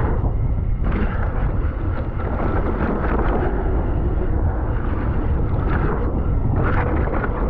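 Mountain bike rolling fast down a rough, rocky dirt trail, with wind buffeting the camera microphone. Tyres crunch over dirt and rock in bursts, with a longer burst of tyre noise near the end as the rear tyre skids on loose dirt.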